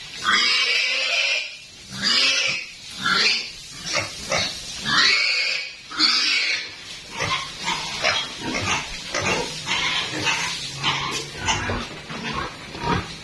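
Pigs squealing: a run of loud, shrill cries, each half a second to a second long, for the first several seconds, then a quicker stream of shorter, quieter grunts and squeals.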